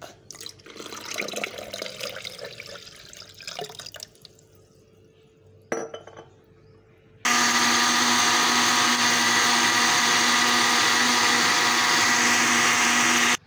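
Milk poured into a blender jar over eggs and sugar, then a short knock, then an electric blender running steadily at full speed for about six seconds, blending the egg-and-milk custard mixture. The blender starts abruptly about seven seconds in and cuts off suddenly near the end.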